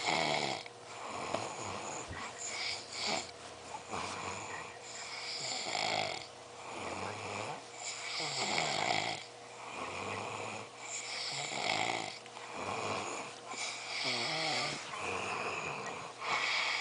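A drunk person snoring in deep sleep, with a rasping snore or wheezy breath every second or two.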